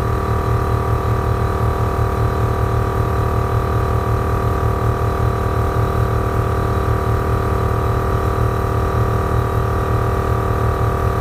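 A 450C air-ride compressor running steadily, with a fast low pulsing hum and a steady whine above it. It is pumping the air tank up past 120 PSI toward a 175 PSI pressure-switch cut-off.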